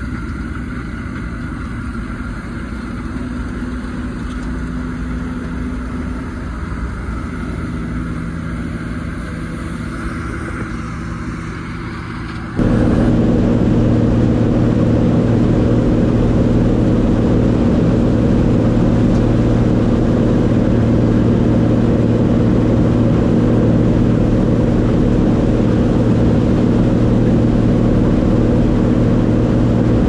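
John Deere combine running steadily while harvesting wheat, heard beside its header as the reel and cutter bar take in the crop. About twelve seconds in it cuts abruptly to a louder, steadier run heard from the grain tank, where the fill auger is pouring wheat in.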